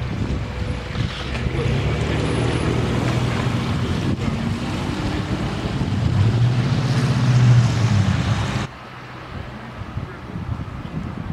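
Wind buffeting the microphone, with the low hum of a motor vehicle's engine underneath that swells to its loudest about two-thirds of the way through. Near the end the sound drops abruptly to a quieter steady hiss.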